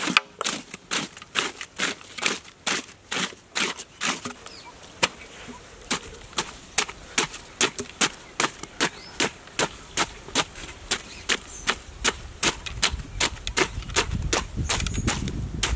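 Knife chopping watermelon flesh in a steel pot: a fast, even run of sharp chops, about three a second. A low rumble rises near the end.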